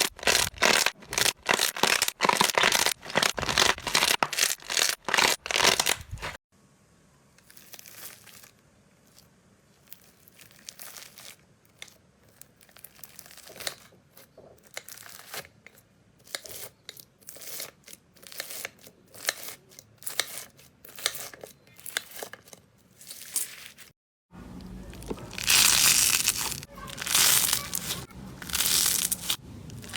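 Slime being squeezed and pressed by hand close to the microphone, giving rapid crackling and popping clicks. The crackles are loud at first, quieter and sparser through the middle, and loud again in dense bursts near the end.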